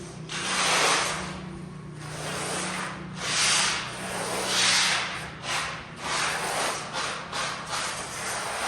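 Repeated rough scraping strokes of a hand tool on a hard surface, about one every second or so, over a faint steady low hum.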